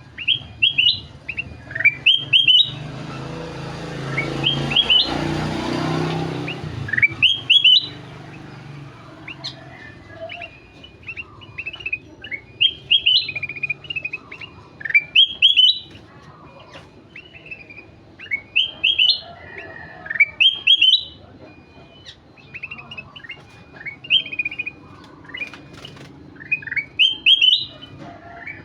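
Kutilang emas (ruby-throated bulbul) singing lively: short phrases of quick, rising whistled notes repeated every couple of seconds. A broad rushing noise swells and fades under the song a few seconds in.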